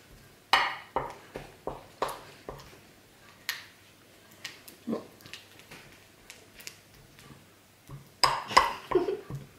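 Metal spoon scraping and clinking against a ceramic bowl while stirring a thick, sticky mix of melted gummy bears and cornstarch. The taps come irregularly, a few a second, with a louder flurry near the end.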